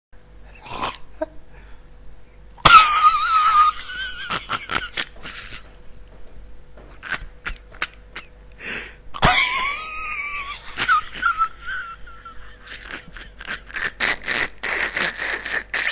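A man laughing in bursts, with two loud high-pitched squeals about three and nine seconds in.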